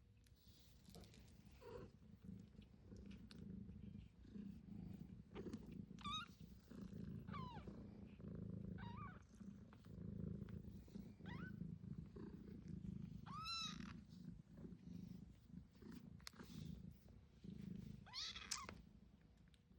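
Cat purring steadily, with several short, high-pitched kitten mews rising and falling over it.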